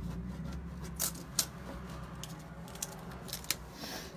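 A decor transfer being rubbed onto glass and its backing sheet peeled by hand: a few sharp little clicks and crinkles, four of them standing out, over a low steady hum.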